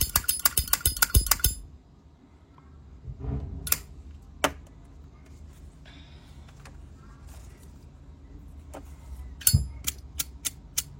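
Zippo lighter being handled: a quick run of metallic clicks as the flint wheel is spun at the start, then a few scattered clicks and clinks of the lighter's metal case later on.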